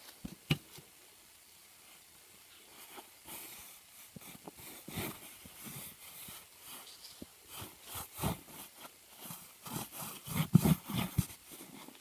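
Hands scraping and brushing loose dry soil over a flat plastic board, in quick rustling strokes with a few soft thumps, the loudest near the end. A sharp knock sounds about half a second in.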